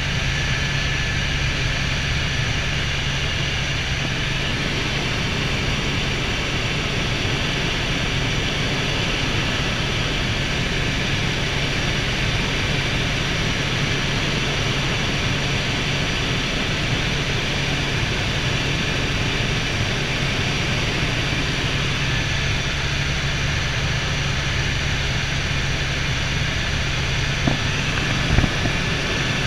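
Helicopter in flight heard from inside the cabin: a steady drone of rotor and engine, a low even hum under a broad hiss. A couple of brief clicks near the end.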